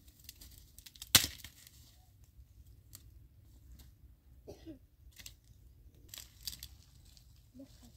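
A dry tree branch snapping with one sharp crack about a second in, then scattered faint cracks and rustling of twigs and dead leaves as branches are pulled and broken by hand.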